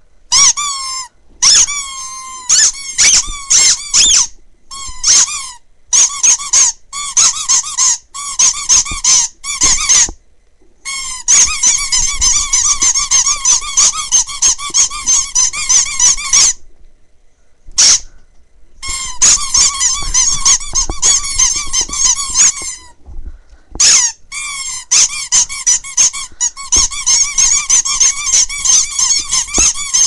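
Green rubber squeak toys squeezed rapidly in both hands, giving loud, high, wavering squeals. Short bursts during the first ten seconds give way to long runs of nonstop squeaking of several seconds each.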